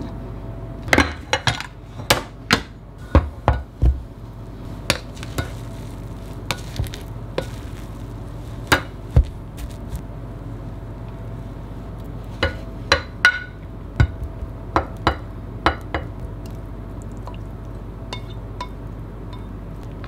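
Kitchen utensils clicking and knocking: a spatula and knife on a wooden cutting board and a rice paddle in a stainless steel pot, as irregular sharp knocks that cluster in two runs, with a steady low hum beneath.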